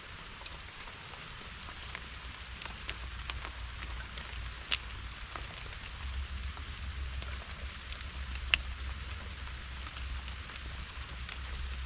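Steady rain heard from inside a primitive shelter with a moss roof, with scattered single drops ticking close by. A low rumble comes in about halfway through.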